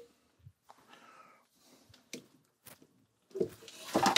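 Camera handling noise: a few small clicks and knocks, then louder rustling and bumping near the end as the camera is moved about against clothing.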